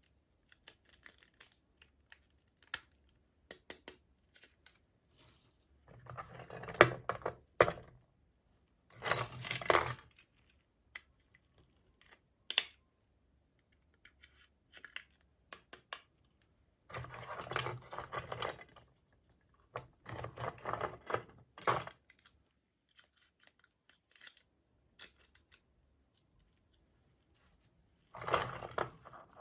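Small plastic toy packaging being handled and opened: light clicks and taps of small parts, with several short bursts of crinkling and tearing packaging.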